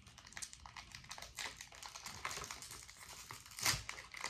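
Plastic snack packet crinkling and crackling as it is handled and opened, with a louder crackle about three and a half seconds in.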